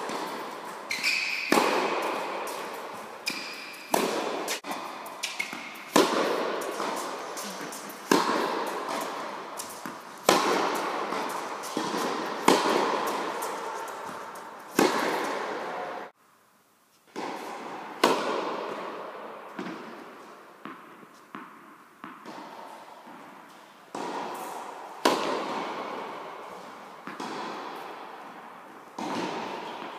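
Tennis racket strikes and ball bounces during a rally in an indoor tennis hall: sharp pops every one to two seconds, each with a long echo from the hall. The pops break off briefly about halfway through.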